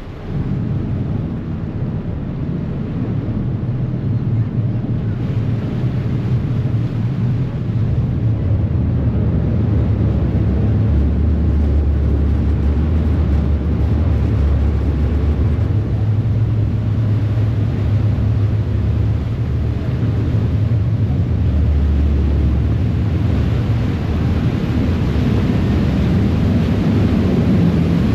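Ferry engine running with a low, steady drone, together with the rushing of water churned up in the wake behind the stern. The sound builds over the first several seconds as the ferry pulls away from the wharf, then holds steady.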